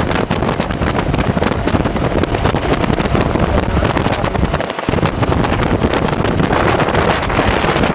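Gusty wind from a supercell thunderstorm buffeting the microphone: a loud, steady rush with crackling, and a brief lull in the low rumble a little past halfway.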